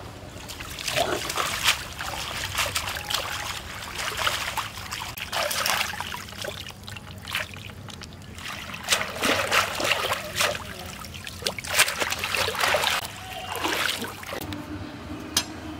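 Pond water splashing and sloshing in irregular bursts as bundles of arum stolons are swished and rinsed by hand, with water trickling off the stems as they are lifted out.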